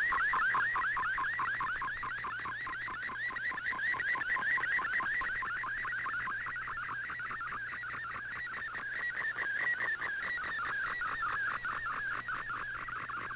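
Shortwave radio digital picture transmission received on an Icom IC-R8600: a warbling tone that sweeps up and down, repeating several times a second as the image is sent, over a faint steady hum.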